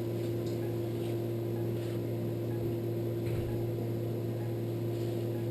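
Steady electrical machine hum made of two constant tones, one low and one higher, with a few faint clicks scattered through it.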